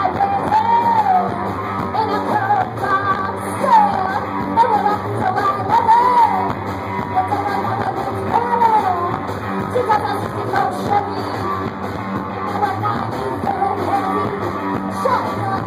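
Loud live punk-blues rock: electric guitar with a singing voice holding high notes that bend up and down.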